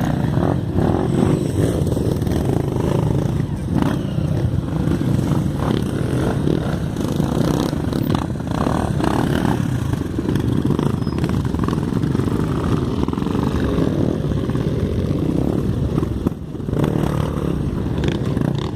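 Off-road vehicle engine running steadily, with a dense low rumble and some rattling, dipping briefly about sixteen seconds in.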